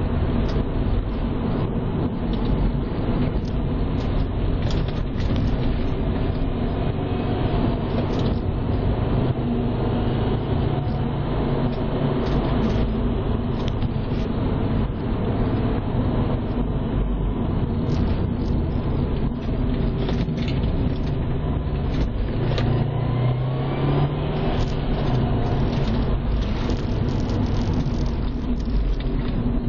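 Subaru WRX's turbocharged 2.5-litre flat-four engine running under way with steady tyre and road noise, heard from inside the car. The engine note rises briefly about three quarters of the way through.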